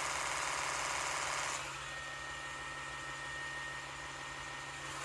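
Rotary electric toothbrush running with a loud buzz. About a second and a half in, the buzz gives way to the quieter hum and thin high whine of a Bestek M-Brush sonic toothbrush.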